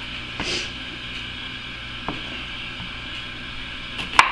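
Kitchen knife cutting limes in half on a wooden cutting board: a few sharp knocks of the blade meeting the board, about half a second in, about two seconds in, and the loudest near the end.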